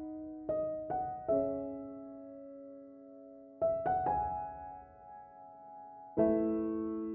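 Soft, slow piano music: a few notes struck close together, left to ring and fade, then the next group, three times.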